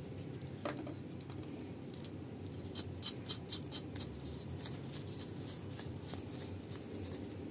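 Small metallic clicks and scrapes as a steel washer and nut are handled and fitted by hand onto the threaded stud of a Kugelfischer warm-up regulator. Most of the clicks come between about two and a half and four seconds in, over a steady low hum.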